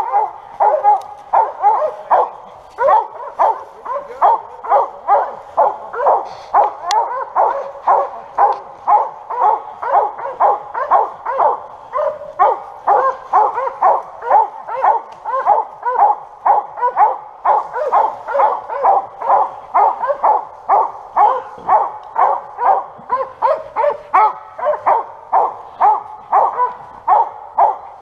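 A squirrel dog barking steadily at the base of a tree, about two to three barks a second without a break: the tree bark of a dog that has treed a squirrel.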